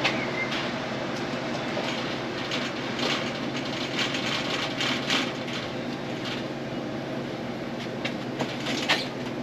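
Quarter-inch copper tubing being pushed through the hole in a copper mounting plate, scraping and ticking against the edge in many short strokes over a steady low hum.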